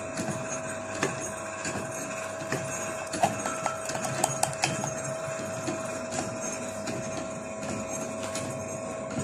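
Light clicks and taps of a plastic lid against a steel bowl as powder is scooped and scraped, a quick cluster of them in the middle, over a steady faint hum.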